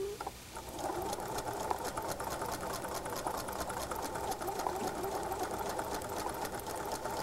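Sewing machine stitching a seam through pieced quilt fabric: a steady, fast run of stitches that starts about a second in.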